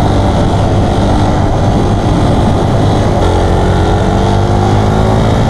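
A Suzuki Raider 150 motorcycle's single-cylinder four-stroke engine running at riding speed, heard under steady wind rumble on the on-bike microphone. Its engine note stands out more clearly from about three seconds in.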